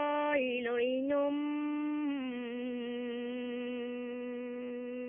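A woman singing a Dao folk song unaccompanied: several drawn-out notes with small dips in pitch, then one long held note of about four seconds.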